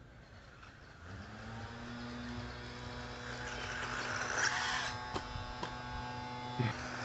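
Losi Mini-T 2.0 brushless 1/18-scale RC truck driving over dirt: a steady electric motor hum that comes in about a second in, with tyre noise and a few sharp knocks in the last two seconds.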